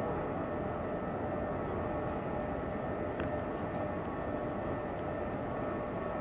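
Electric commuter train approaching slowly: a steady rumble with a few faint steady high tones over it.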